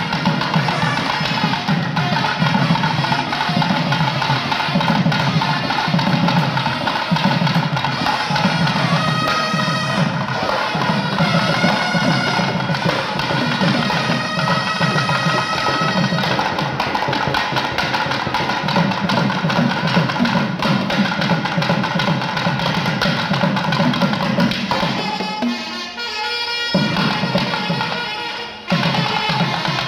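Kerala temple percussion ensemble: barrel drums beaten with hand and stick in a fast, dense rhythm, with a reedy wind instrument holding high notes partway through. Near the end the drumming thins out and briefly drops away before resuming.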